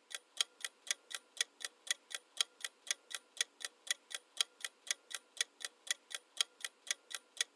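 Countdown-timer clock ticking sound effect, steady even ticks at about four a second.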